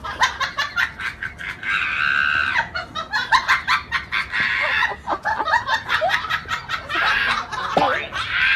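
Domestic fowl calling in a rapid jumble of short, sharp clucks, with a harsher drawn-out squawk about two seconds in.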